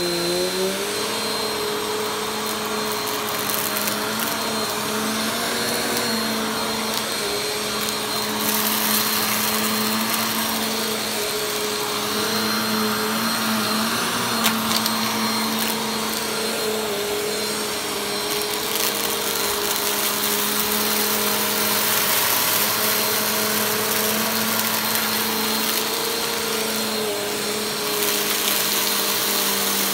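Upright bagless vacuum cleaner switching on and spinning up in the first second, then running steadily with a motor whine and a rush of air. Its pitch wavers slightly and the hiss brightens in stretches as it is pushed back and forth over carpet, sucking up fine dirt with a very light crunch.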